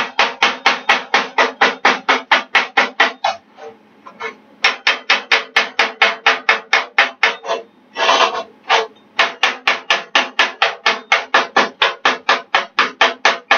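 Chipping hammer rapidly knocking slag off fresh 7018 stick welds where a steel pipe meets a steel plate, about five blows a second, with two short breaks.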